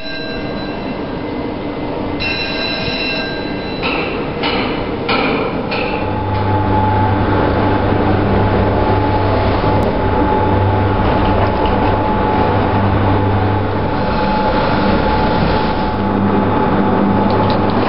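Doppelmayr eight-seat detachable gondola running on a test: a steady mechanical rumble and hum from the haul rope and sheaves. A few clacks come about four to six seconds in.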